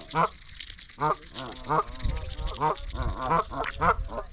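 Waterfowl calling: a rapid series of short nasal quacks and honks, about two a second.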